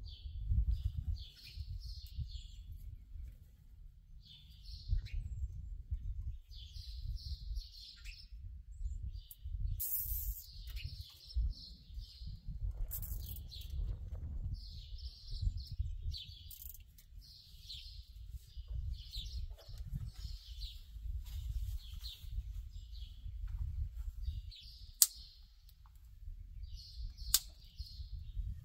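A songbird chirping in short phrases repeated every second or two, over a low steady rumble. A couple of sharp clicks come near the end.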